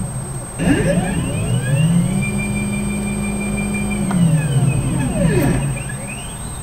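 Stepper motors of a CNC gantry machine whining as the thread-laying head makes a move. The pitch rises as it speeds up about half a second in, holds steady for about two seconds, then falls as it slows to a stop. Another move starts rising near the end.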